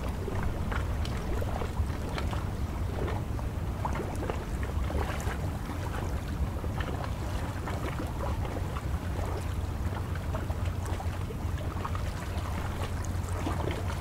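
Choppy estuary water lapping and splashing against a concrete quay edge, many small splashes over a constant wash. A steady low wind rumble on the microphone runs underneath.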